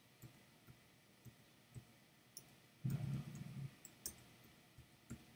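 Soft, irregular computer keyboard clicks, from keys pressed to step through and tag photos. A brief, louder low-pitched sound comes about three seconds in.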